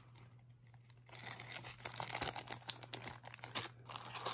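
Small clear plastic zip-top jewelry bags crinkling and rustling as they are handled, with many small sharp clicks, starting about a second in.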